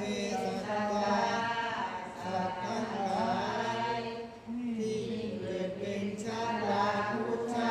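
Thai Buddhist evening chanting (tham wat yen): voices reciting in a steady, sung monotone, with a brief pause for breath about four and a half seconds in.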